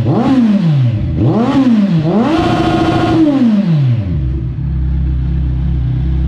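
Kawasaki Ninja 1000's inline-four through an aftermarket SC Project titanium exhaust, blipped twice quickly, then revved up and held for about a second before dropping back to a steady idle.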